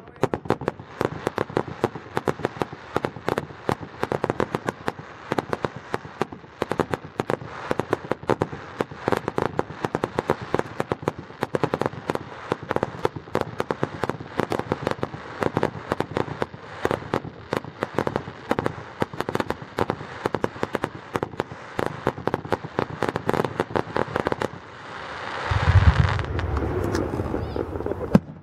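Fireworks display: a rapid, dense string of crackles and pops from crackling firework effects. About 25 seconds in comes a loud boom, followed by a couple of seconds of heavier rumbling crackle.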